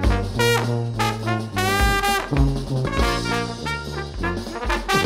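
Background music with brass instruments and a steady beat.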